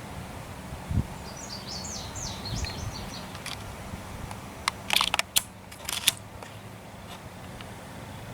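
A Remington 700 ADL bolt-action rifle's bolt being worked: a quick cluster of sharp metallic clicks around the middle, as a round is chambered for the next shot. A bird chirps faintly in the background for a couple of seconds about a second in.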